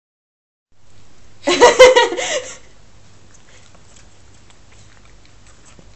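Nova Scotia Duck Tolling Retriever puppies yelping and squealing while play-biting: a short run of several high cries about a second and a half in, then only faint rustling.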